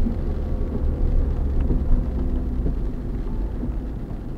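Motorhome driving slowly on a wet road, heard from inside the cab: a steady low rumble of engine and tyres as the vehicle slows down.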